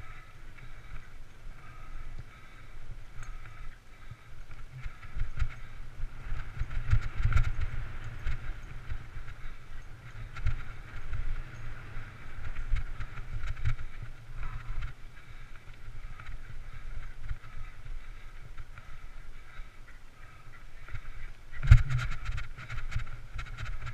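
Mountain bike ridden fast down a dirt forest trail, heard from a helmet camera: a steady low wind rumble on the microphone with the bike's rattles and knocks over bumps, and one sharp clatter near the end.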